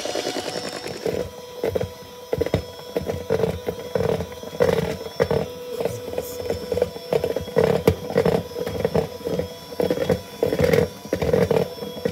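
Chefman electric hand mixer running with a steady motor hum, its beaters beating cookie batter and knocking irregularly against the sides of the mixing bowl.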